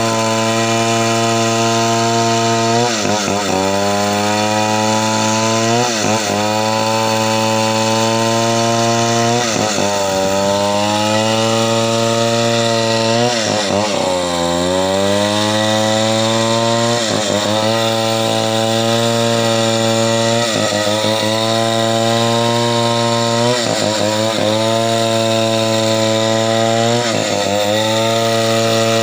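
Chainsaw running at high revs and cutting, its engine pitch dropping and then recovering about every three or four seconds as the chain bites into the wood and is eased back.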